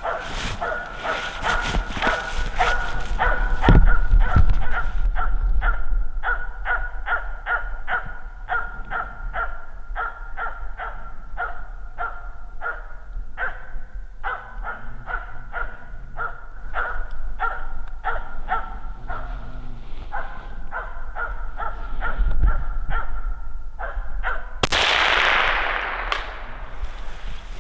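Hunting dog barking steadily and rhythmically, about three barks a second, holding a capercaillie treed for the hunter. Near the end a sudden burst of noise cuts across the barking and fades over about two seconds.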